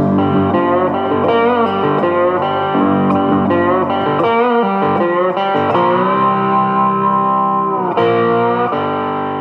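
Instrumental background music led by guitar, with a long held note that bends in pitch about six seconds in.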